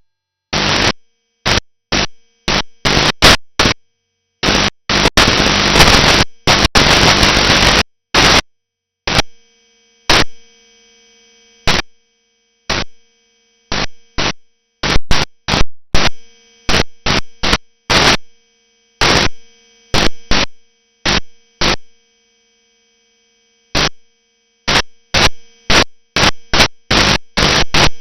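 Shortwave radio static heard through a software-defined receiver, a loud hiss that cuts in and out abruptly in irregular bursts, some several seconds long and many brief, with dead silence between them. In the quieter middle stretch, faint steady tones of weak carriers sit under the gaps.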